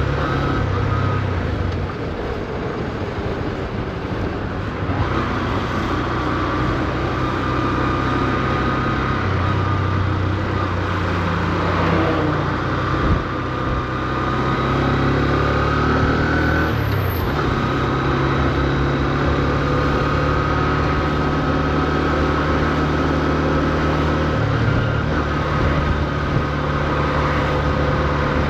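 Honda CB125F's 125 cc air-cooled single-cylinder engine running as the motorcycle is ridden, kept at low revs while it is being run in. Its pitch rises and falls with the throttle, dipping and climbing again about halfway through and once more a few seconds later.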